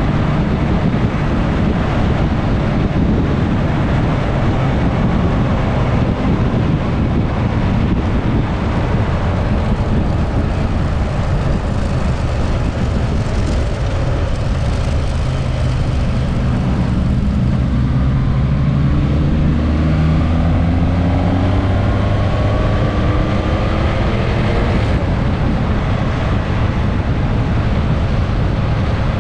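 Suzuki GSX-S1000S Katana's inline-four engine running under way, with wind rushing over the microphone. In the second half the engine note rises twice as the bike speeds up.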